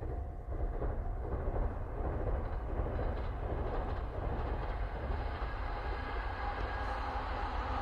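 JR East E259 series electric multiple unit running past, a steady rumble of wheels on rails that swells in within the first second and holds.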